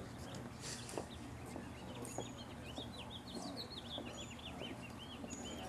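Small birds chirping, a busy run of short, quick high notes that thickens in the middle, over a steady low background hum.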